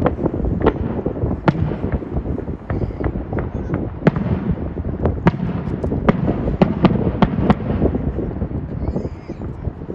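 Aerial firework shells bursting in a quick, irregular string of sharp bangs and cracks, about two or three a second, over a steady low background. The bangs thin out near the end.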